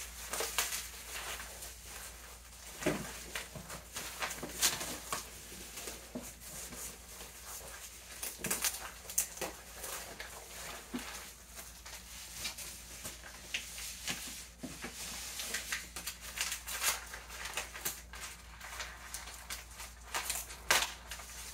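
Brown kraft packing paper crinkling and tearing as it is pulled apart by hand, an uneven run of rustles and rips.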